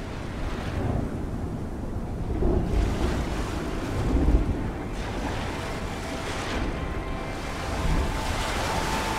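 Ocean surf and wind ambience, a steady rushing wash that swells louder twice in the first half. A few held musical notes come in faintly near the end.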